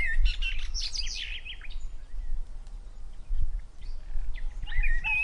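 Birds chirping: many short, high chirps, thick at first, sparser in the middle and busier again near the end, over a steady low rumble.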